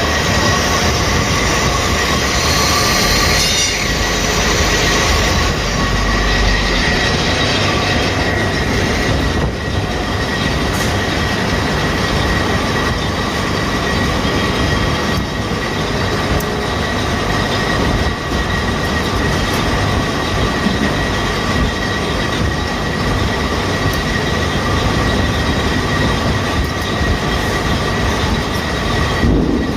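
Conveyor belt machinery running continuously: a dense metallic clatter with a steady high squeal over it.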